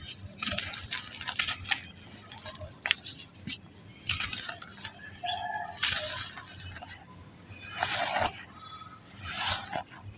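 Balls of soft black sand crumbling and breaking apart: a series of gritty, crackling crunches with short pauses between them.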